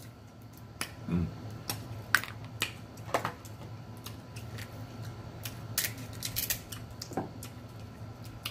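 Crab shell cracking and snapping as meat is picked out of the legs: irregular sharp clicks and cracks, a few at a time.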